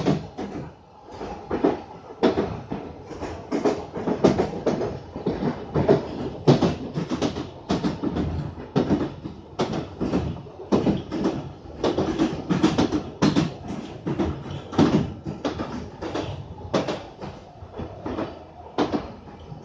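A London Underground 1995 Stock train running along the track, heard from inside the carriage: a steady rumble with frequent, irregular sharp knocks and clatters.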